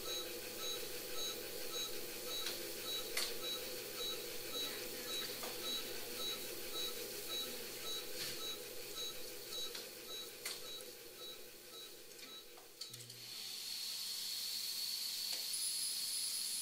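Veterinary patient monitor beeping with each heartbeat, about two short high beeps a second, matching a heart rate near 110, with a few faint clicks of instruments. About 13 seconds in, a steady hiss with a thin high whine comes on as the electrosurgical pencil is taken up.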